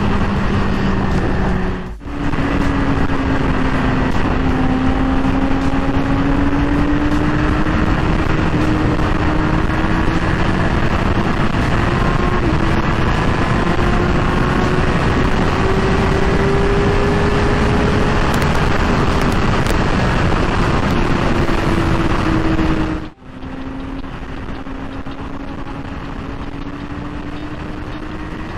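Yamaha R6's inline-four engine with an Akrapovic full exhaust, running hard at high speed with a steady note that climbs slowly, over wind rush. The sound breaks off abruptly twice; after the second break the engine runs quieter and lower.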